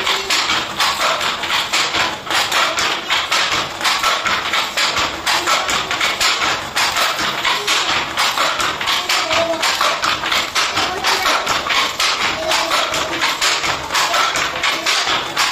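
Wooden handloom clacking in a steady rhythm as it weaves, with sharp wooden knocks from the beater and shuttle at about three a second.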